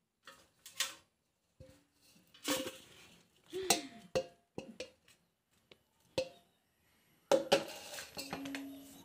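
Stainless-steel grinder jar and steel bowl knocking and clinking together as flour is tipped and tapped out, a string of irregular metallic clinks, some ringing briefly, the loudest near the end.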